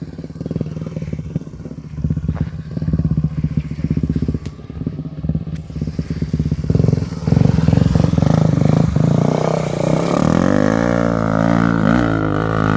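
Honda XR250 Tornado's single-cylinder four-stroke engine running with a choppy beat, getting louder about seven seconds in, then revving up and down near the end.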